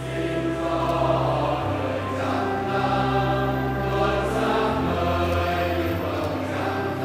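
Choir singing a slow church hymn over held accompaniment chords, the bass note shifting twice.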